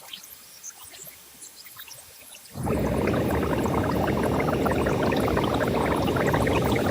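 White noise from a test oscillator shaped by the Synaptic Resonance neural-simulation plugin. Faint scattered crackles for the first couple of seconds, then a dense, grainy rush of noise cuts in suddenly, heavy in the low and middle range, and runs on steadily.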